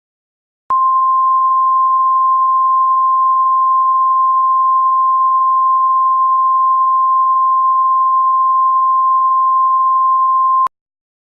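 A single steady electronic tone of about 1 kHz, the 1050 Hz NOAA Weather Radio warning alarm tone. It starts just under a second in, holds for about ten seconds and cuts off sharply, signalling that a new warning message is about to follow.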